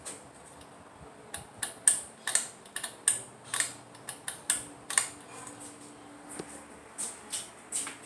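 Quick irregular clicking and rattling of a Hampton Bay Tripoli ceiling fan's pull chain and switch housing as a hand works them, some twenty clicks, with the fan's motor humming faintly underneath.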